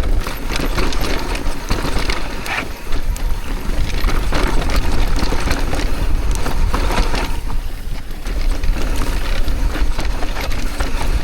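Mountain bike descending a dry, loose, sandy trail: tyres crunching and sliding over the dirt, with the bike rattling and knocking over bumps and wind buffeting the microphone.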